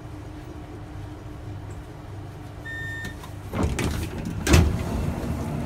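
Train's sliding passenger doors opening at a station stop: a short beep, then about a second later the doors open with a rush of noise and a loud thud, over the low hum of the standing train.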